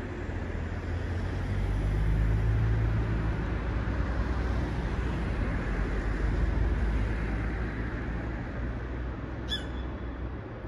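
Low engine rumble with a hiss over it, swelling over the first couple of seconds and easing off after about seven seconds. A short sharp click comes near the end.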